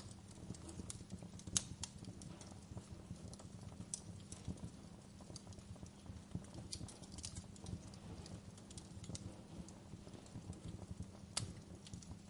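Wood fire burning in a fireplace: a low steady rumble of flames with irregular sharp crackles and pops, the loudest pops about one and a half seconds in and near the end.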